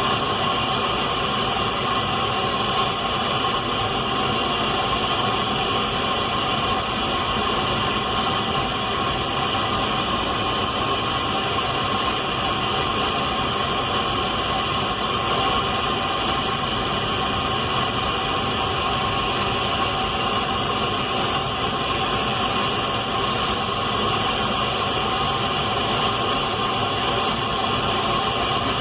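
Radio static: a steady, unbroken hiss.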